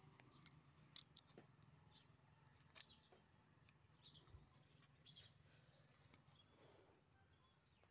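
Near silence: faint outdoor ambience with a few faint short high chirps and ticks.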